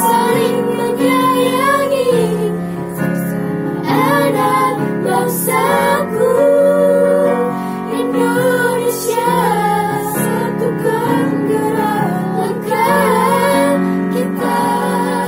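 A small choir of girls singing a song together, accompanied by a Yamaha electronic keyboard holding sustained chords that change every second or two.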